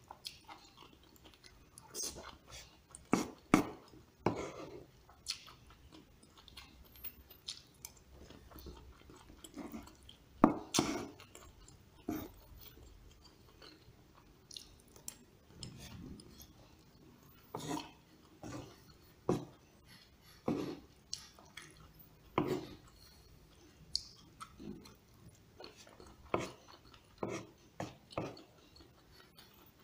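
Close-up eating sounds: chewing and mouth noises, with irregular clicks and scrapes of a metal spoon and fork against the plate. The sharpest clicks come about three and ten seconds in.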